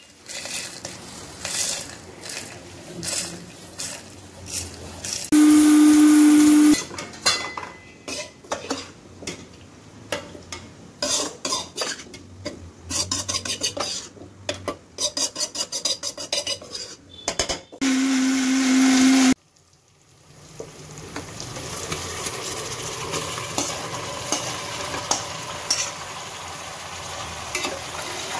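Dry-roasted spices clatter into a steel mixer-grinder jar, and the grinder runs briefly twice, each time for about a second and a half, the loudest sound here. Between the runs a spoon clinks and scrapes against the steel jar. From about two-thirds of the way in, a steady sizzle of marinated chicken frying in an aluminium pressure cooker, stirred with a spatula.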